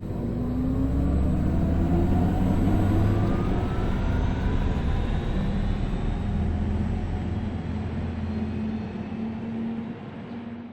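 Audi e-tron GT electric car accelerating: a whine that rises in pitch over tyre and road noise for the first few seconds, then levels off into steady running, easing off near the end.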